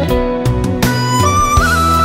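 Backing music of a Chinese pop love-song duet. A high, held melody line with small pitch slides comes in about a second in, over a steady bass.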